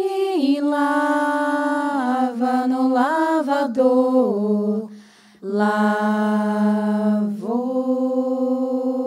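Women's voices singing a cappella in unison: long held notes that step up and down in pitch, with a short break about five seconds in before further long held notes.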